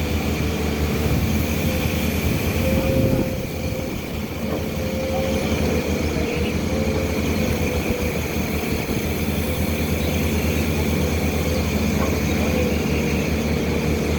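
Excavator's diesel engine running steadily, a constant low drone that dips briefly about three seconds in.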